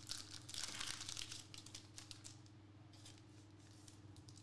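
Trading cards being handled and shuffled in the hand: faint rustling and light clicks of card stock sliding against card stock, busiest in the first second and a half and sparser after.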